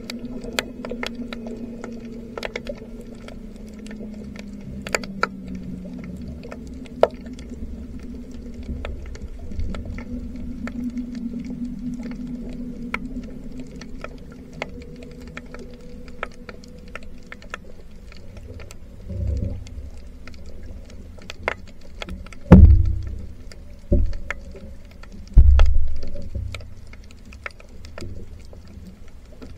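Underwater sound picked up by a camera on a reef: scattered sharp clicks over a low hum, with heavy low thumps in the last third, two of them much louder than the rest.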